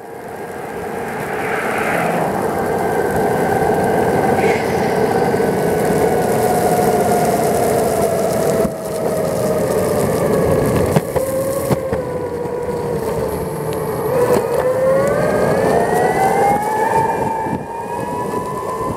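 Whine of an electric skateboard's dual 6355 brushless motors, falling slowly in pitch as the board coasts and slows, then rising again over the last few seconds as it speeds up, over a steady rumble of the wheels on pavement.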